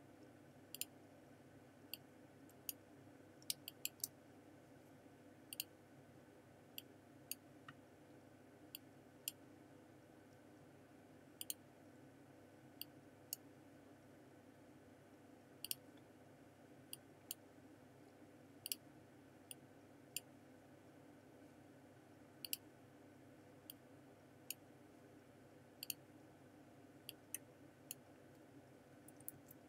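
Computer mouse clicking at irregular intervals, single clicks and quick pairs, over a faint steady hum.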